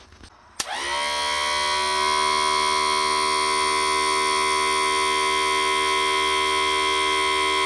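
A Johnson/Evinrude power trim and tilt unit's electric motor and hydraulic pump switch on about half a second in and settle into a loud, steady whine, driving the trim ram. This is the sign that the rebuilt pump is working.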